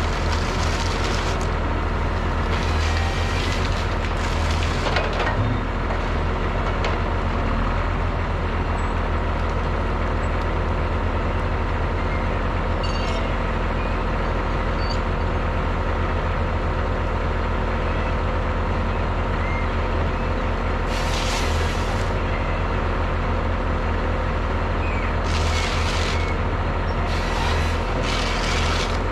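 Diesel engine of a Rottne H20 forestry machine running steadily, a constant low hum, with several short hissing bursts over it near the start and in the last third.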